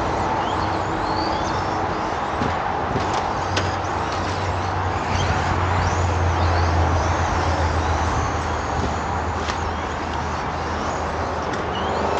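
Radio-controlled spec trucks racing around the track: a steady rush of motor and tyre noise with short high whines rising and falling as the trucks pass, and a few sharp clicks.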